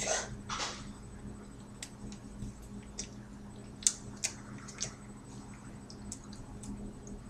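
Soft rustling near the start, then scattered small clicks and taps from hands brushing against each other and a cotton sweatshirt while signing, over a steady electrical hum.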